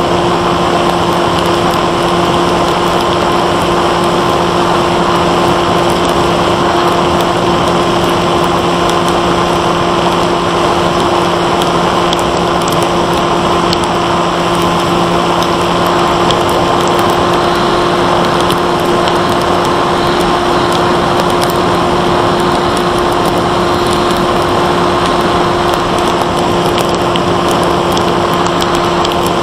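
Bixler 1.1 electric FPV plane in flight, heard through its onboard camera: the Turnigy 2826 brushless outrunner motor and 8x3.4 propeller running at steady throttle as a held hum of several tones, under a steady rush of wind noise.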